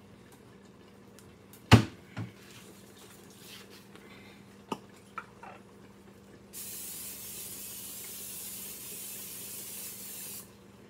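A sharp knock of cookware set down, then about six and a half seconds in a steady hiss of aerosol cooking spray onto a pan, lasting about four seconds and cutting off abruptly.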